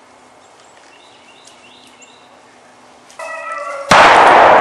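Faint bird chirps, then about three seconds in a dog starts baying, as hounds do on a rabbit's trail. Near the end comes a sudden, very loud blast, a shotgun shot, which rings out and fades slowly.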